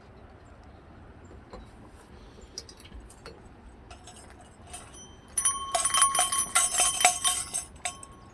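Small metal bells jangling, struck rapidly over and over for about three seconds from about five seconds in, with several clear ringing pitches. Scattered light clicks come before it.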